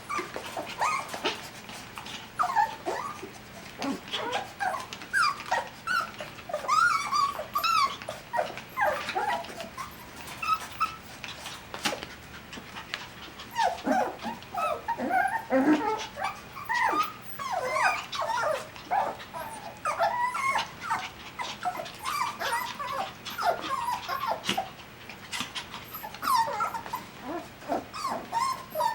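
A litter of seven-week-old Coton de Tulear puppies whining and yipping, with many short high squeaks that come and go in clusters, among light clicks.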